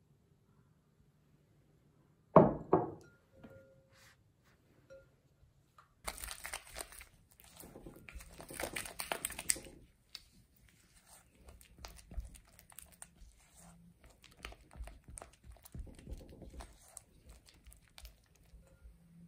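Silicone spatula beating butter and egg white in a glass bowl: irregular scraping and squelching strokes against the glass, starting about six seconds in. A single sharp knock comes about two seconds in.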